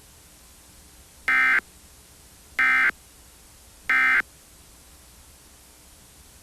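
Three short, identical bursts of buzzy Emergency Alert System data tone, each about a third of a second and a little over a second apart. This is the end-of-message code that closes an EAS broadcast.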